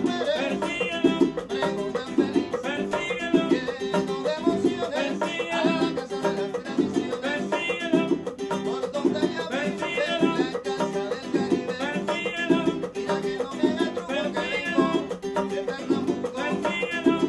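Cuban son played on acoustic guitar, with plucked strings in a steady, repeating rhythm.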